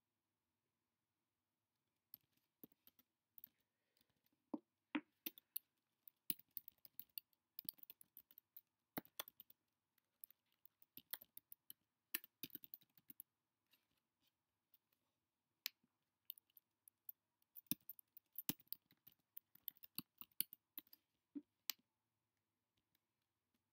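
Faint typing on a computer keyboard: irregular runs of keystrokes that start about two seconds in, pause briefly around the middle, and stop shortly before the end.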